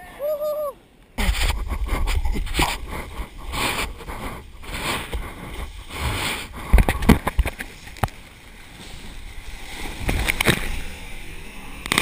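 Shorebreak waves churning around a GoPro at the water's surface. About a second in, the wash hits suddenly with a heavy low rumble, then keeps going with splashing and sloshing water over the camera housing.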